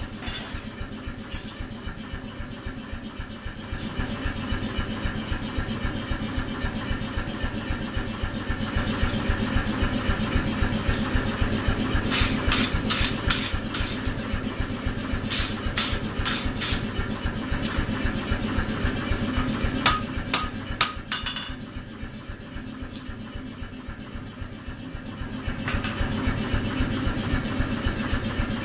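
Steel wire brush scraping a glowing hot steel workpiece on an anvil in short strokes, in two spells about 12 and 15 seconds in, then a few sharp metallic clanks about 20 seconds in. Under it all runs a steady mechanical drone with a fast, even low throb.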